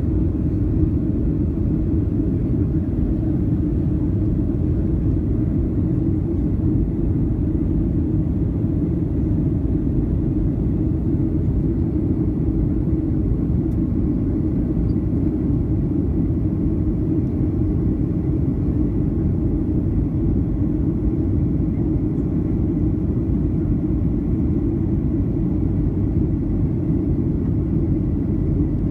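Steady cabin noise inside a Boeing 737-800 in flight: an even, deep rumble of engines and airflow.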